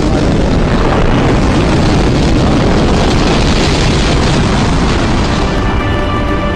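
Rocket launch sound effect: the loud, steady noise of rocket engines at liftoff, easing a little near the end as sustained musical tones come in.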